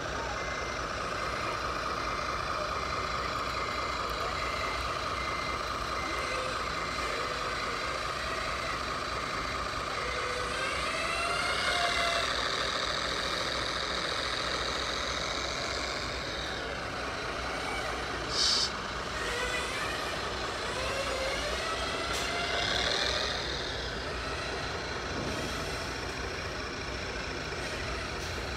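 Radio-controlled HD405 model mining dump truck with an electronic sound module, tipping its load of dirt: a simulated truck engine runs steadily with a repeating beep for the first ten seconds or so. The engine note then rises, and a brief hiss comes about two-thirds of the way through.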